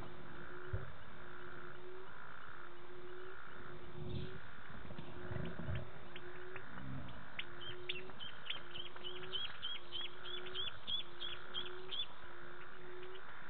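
Night chorus of calling animals in the bush: a low call and a higher pulsing call each repeat evenly, about one and a half times a second. About halfway through, a rapid run of high chirps comes in, about three or four a second, and stops near the end. A few short low sounds come in the middle.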